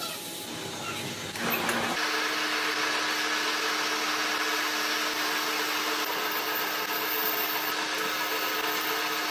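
An electric machine-shop power tool running steadily, a constant motor hum with a hiss of noise over it, getting louder about two seconds in.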